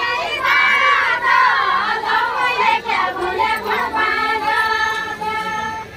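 Group of women singing a Deuda folk song together, several voices at once, ending on a long held note in the second half.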